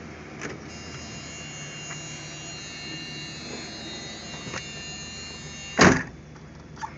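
Car door slammed shut about six seconds in, the loudest sound, over the steady idle of a 1975 Chevrolet Caprice's 350 V8. A high steady buzz cuts off as the door shuts.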